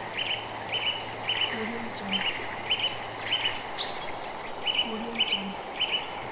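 Bird-video soundtrack playing from a TV: short birdsong chirps repeating about twice a second over a steady high insect drone, with a low two-note call coming in twice.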